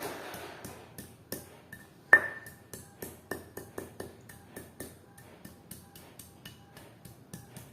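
Pestle pounding fresh turmeric root in a mortar: quick, repeated knocks at about four or five a second, with one much louder ringing strike about two seconds in.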